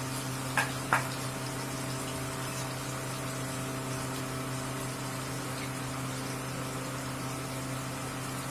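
Marinated fish pieces deep-frying in a kadai of hot oil: a steady sizzle and bubbling over a constant low hum, with two sharp clinks about half a second and one second in.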